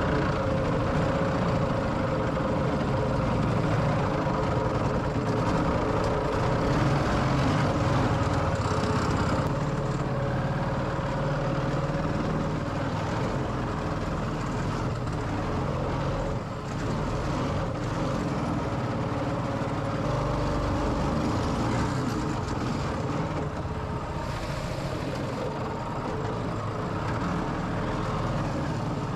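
A 212cc 6.5 hp single-cylinder four-stroke inboard engine running steadily under load, driving a surface-drive propeller that churns the water behind the boat.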